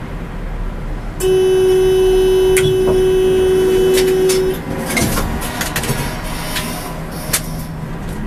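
A loud, steady horn-like warning tone at one pitch sounds for about three seconds, starting and stopping abruptly. After it, a scatter of sharp clicks and knocks over a steady vehicle rumble.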